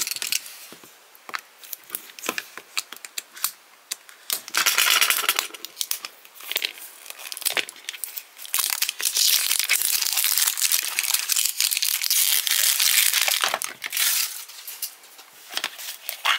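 Cardboard blind box being torn open and its packaging handled: scattered clicks and scrapes, a short burst of rustling about five seconds in, then a long stretch of tearing and rustling from about eight to thirteen seconds in.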